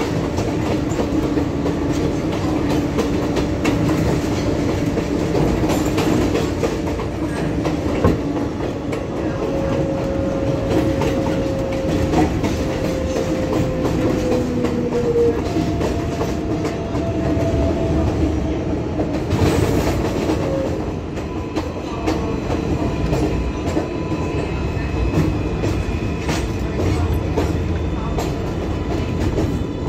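Kawasaki R188 subway car running between stations, heard from inside: a steady rumble of wheels on rail with clicking from the rail joints. Over it, the propulsion whine holds thin tones that slide slowly down in pitch through the middle stretch. There is a short burst of noise a little past the middle.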